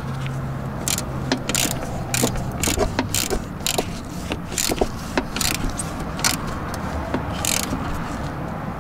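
Irregular sharp metallic clicks and clinks of hand tools being worked on metal parts, roughly one or two a second. A low steady hum underneath stops about three seconds in.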